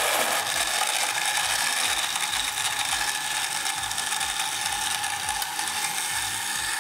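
Electric countertop blender running steadily, blending a smoothie of yogurt, milk, cream and ice, with an unchanging motor whine.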